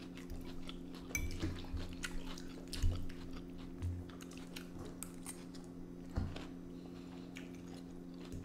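Close-miked chewing, with scattered clicks of cutlery against a dish and a few short low thumps, over a steady low hum.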